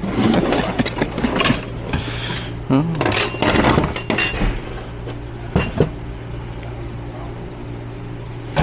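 Metal transmission parts clinking and clattering as they are handled on the bench, over a steady low hum; the clatter dies down after about four seconds, leaving two single knocks later.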